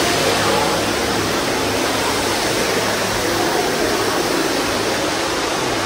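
Water pouring down an indoor waterfall, a steady rushing noise.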